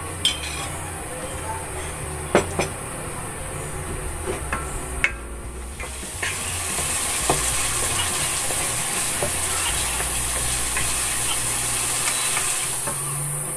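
Wooden spatula stirring black bean chili sauce in a stainless steel pan, with a few sharp knocks against the pan in the first five seconds. The sauce sizzles in the hot oil and water, and the sizzle grows louder and steadier about six seconds in.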